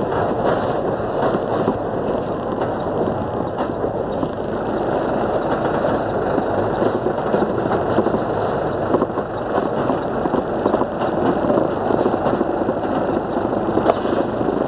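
Steady engine and road noise from a vehicle driving along a city street, with a single brief knock near the end.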